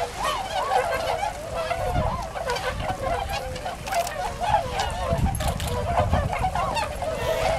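A large flock of Bewick's swans (tundra swans) calling together on the water: a continuous chorus of many overlapping, wavering honking calls.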